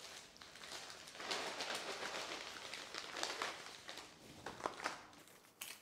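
Crumpled brown paper parcel being unwrapped and a plastic bag of dried gentian root pieces pulled out: irregular crinkling and rustling of paper and plastic, with a few sharper crackles near the end.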